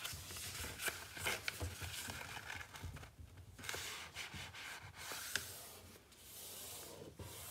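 A sheet of paper rustling and rubbing as it is folded and creased by hand, with a few sharp little ticks and a short pause about three seconds in.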